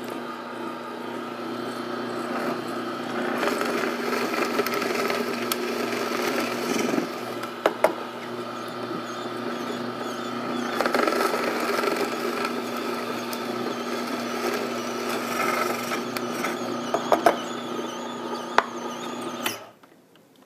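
Slow masticating juicer's motor running with a steady hum while it crushes broccoli stalk, with crunching and a few sharp cracks, then stopping abruptly near the end.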